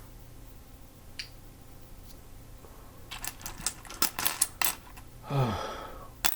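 A quick flurry of light clicks and rattles of small hard objects about three seconds in. A short sound falling steeply in pitch follows, then one more click near the end.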